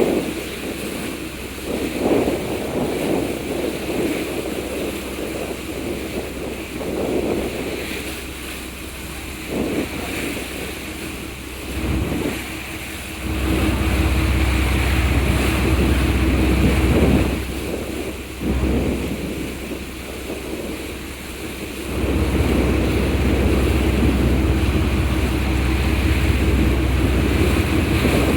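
Sea water rushing past a moving ferry, with wind buffeting the microphone and a faint steady hum. The low wind rumble turns heavy about halfway through, eases, then comes back heavy for the last third.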